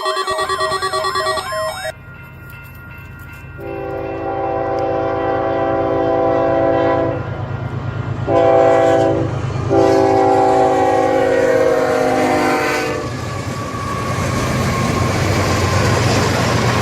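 Passing train: a diesel locomotive's air horn sounds three blasts, a long, a short and a long, over a steady low engine hum. After that comes the noise of the cars rolling by.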